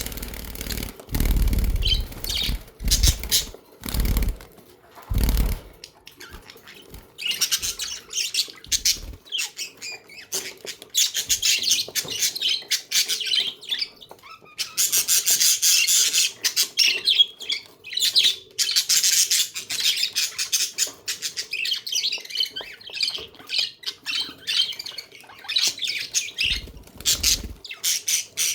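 A flock of budgerigars chattering and chirping steadily in quick, warbling bursts. A few low thumps sound in the first few seconds and once more near the end.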